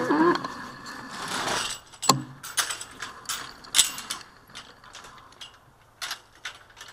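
Irregular mechanical clicks and ticks from the electric handcycle's mechanism as it rolls slowly, after a short rush of noise about a second in; the clicks grow fainter toward the end.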